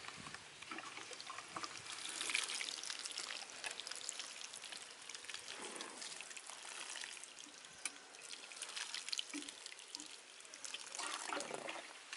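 Water sprinkling from a watering can's rose onto the soil of a seedling tray: a steady, even patter of water, a little louder about two seconds in.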